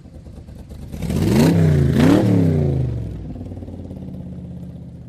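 Car engine revved twice in quick succession, its pitch climbing and dropping back each time, then settling to a steady lower run.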